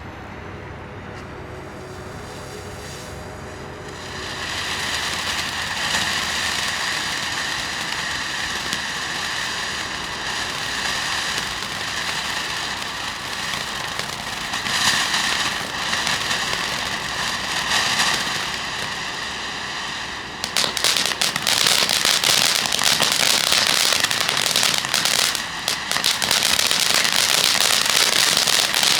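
Ground fountain firework spraying with a steady loud hiss from about four seconds in. About twenty seconds in it breaks into a louder, dense crackle.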